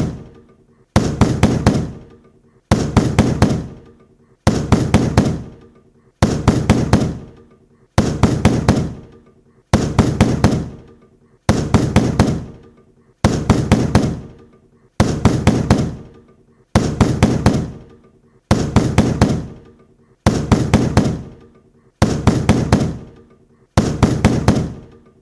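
Heavy door being knocked on: quick groups of about four hard knocks, repeated evenly about every second and a half to two seconds, each group followed by a resonant ringing decay.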